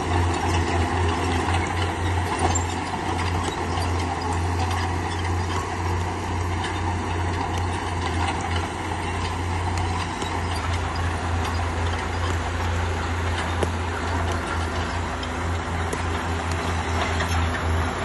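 Bulldozer's diesel engine running steadily, with a constant rattle of metal clicks from the working machine.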